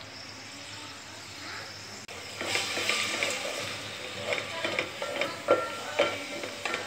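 Ginger-garlic paste sizzling in hot oil in an aluminium pot, stirred with a wooden spatula. The sizzle grows louder about two seconds in, and the spatula knocks and scrapes against the pot several times.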